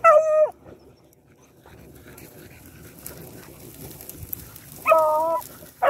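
Rabbit-hunting hounds giving short, high yelping bays as they search for a rabbit's scent: one right at the start and one about five seconds in, with the pack rustling through grass between.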